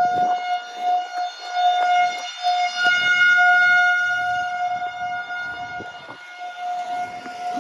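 Outdoor tornado warning siren sounding a steady alert tone at one constant pitch for a drill, swelling and dipping in loudness and growing fainter after about five seconds.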